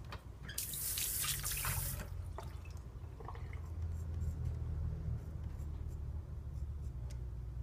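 Water running briefly from a tap for about a second and a half, with a few small clicks after it, then the faint scrape of a straight razor drawn over lathered stubble.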